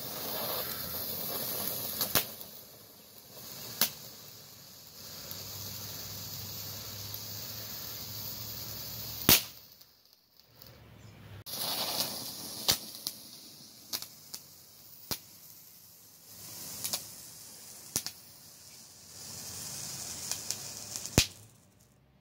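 TNT Flashing Fountains ground fireworks spraying sparks with a steady hiss, punctuated by sharp pops and cracks. The loudest pop comes about nine seconds in, followed by a brief near-quiet gap before the hissing and popping resume.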